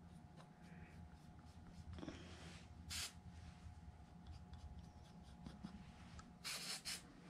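Faint rubbing and a few brief scuffs of fingers working over the gasket on a Cummins VGT turbo actuator's aluminium housing, over a low steady hum.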